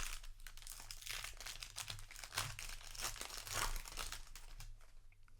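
Crinkling and rustling of a plastic booster-pack wrapper being handled and torn open: a dense run of irregular crackles that thins out near the end.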